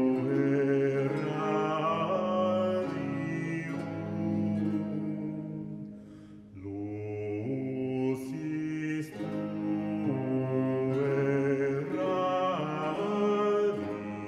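Background choral music: a vocal ensemble singing slow, held chords. The voices fade out briefly about six seconds in, then come back in.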